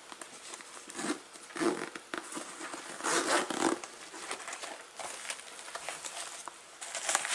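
Zipper on the top flap of a Nelson-Rigg fabric motorcycle tank bag being drawn open in a few short pulls, with rustling of the bag's fabric as it is handled.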